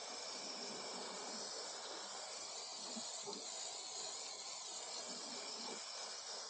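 Aerosol can of black spray paint hissing in one long, steady spray.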